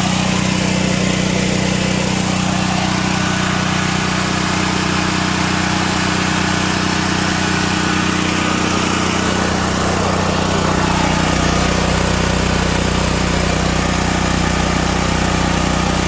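Small single-cylinder engine of a portable gas generator running steadily on a newly replaced carburetor. Its low hum grows a little stronger about ten seconds in.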